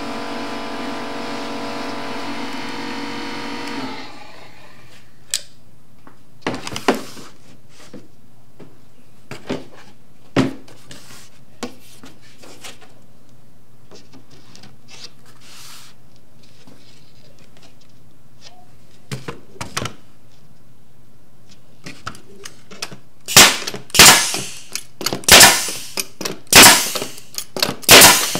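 A steady motor hum cuts off about four seconds in, followed by scattered knocks of wooden cabinet panels being handled. Near the end a pneumatic staple gun fires a quick run of loud, sharp shots, about one and a half a second, stapling the side panel to the frame.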